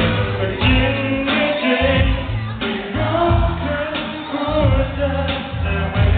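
Live pop song through a concert sound system: a male vocalist singing over a heavy, pulsing bass beat, with the high end muffled.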